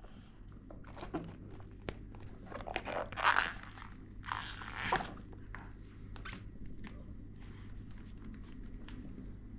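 Rustling and crinkling with scattered small clicks, loudest in two bursts about three and five seconds in.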